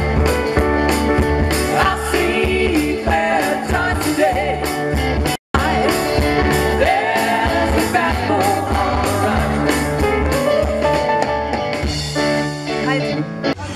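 Live rock band playing: a woman singing lead over bass guitar, drums and keyboard. The sound cuts out for an instant about five and a half seconds in.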